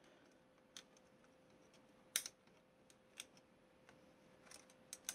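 Faint, irregular small plastic clicks and taps of fingers fitting small light bulbs into plastic holders on a model starship kit frame, the loudest about two seconds in.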